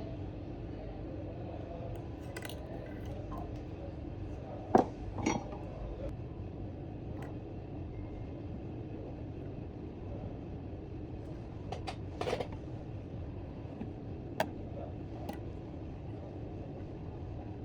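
Small metal repair tools clinking and tapping on a workbench a handful of times, loudest about five seconds in, over a steady low hum of shop noise.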